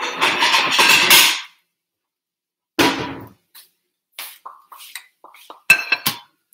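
Dishes being handled in the kitchen to plate food. A clatter lasts about a second and a half, then comes a single knock near the middle, a few light taps, and a sharp ringing clink of a ceramic plate near the end.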